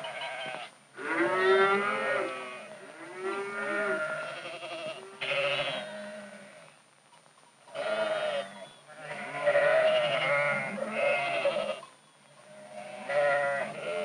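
Farm animals bleating over and over: about seven separate calls of a second or two each, some with a wavering pitch.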